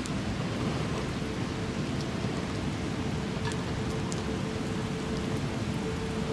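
Steady rain falling on a tarp shelter, with a few sharp drop ticks.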